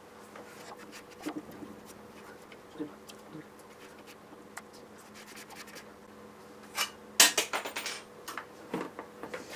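Scattered small clicks and scrapes of hands and tools working on a moped's body, with a louder burst of scraping and clattering about seven seconds in, over a steady hum.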